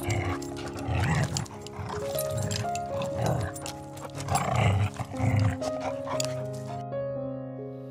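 A dog barking about five times, in short low barks spread over several seconds, over steady background music.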